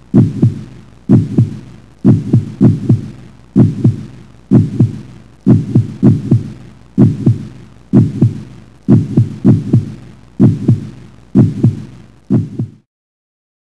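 Heartbeat sound effect: paired low lub-dub thumps about once a second, stopping abruptly near the end.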